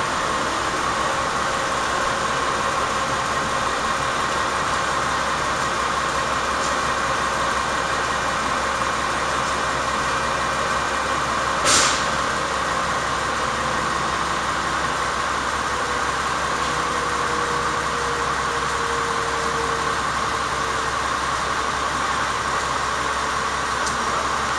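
KiHa 47 diesel railcar idling with a steady hum. A single sharp click about halfway through.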